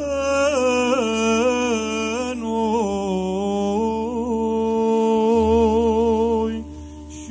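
Orthodox liturgical chant: voices sing a long, drawn-out melismatic line, the melody moving slowly over a steady held note. The singing breaks off briefly near the end.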